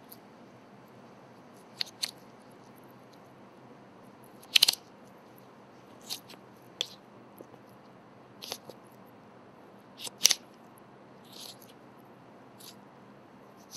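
Boning knife cutting the fillet from a venison saddle on a wooden board: irregular short taps and scrapes as the blade meets bone and board, loudest about four and a half and ten seconds in.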